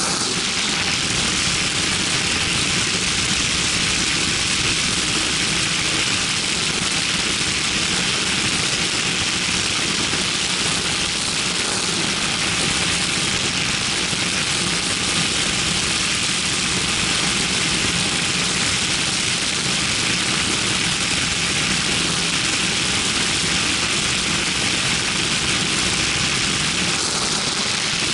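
Hurricane ultralight aircraft's engine and propeller running steadily in flight, heard from the open cockpit with a dense rush of wind over the engine note.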